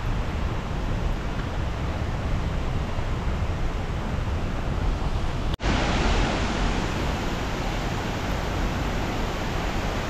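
Steady rushing noise of a waterfall. It breaks off for an instant a little past halfway and comes back slightly louder and brighter.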